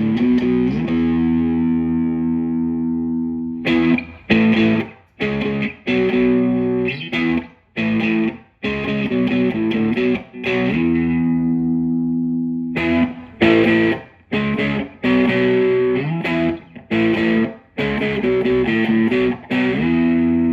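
Electric guitar, a Fender Stratocaster on its bridge and middle pickups together, played through a Tube Screamer-style overdrive pedal (Maxon Vintage Overdrive Pro). Mildly overdriven chords are struck: some are left to ring out for a couple of seconds, and between them come runs of short chord stabs that are cut off sharply.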